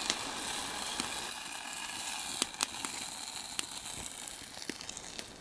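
Meatballs in tomato sauce sizzling in a frying pan over a wood fire, a steady hiss with the fire giving sharp snaps now and then.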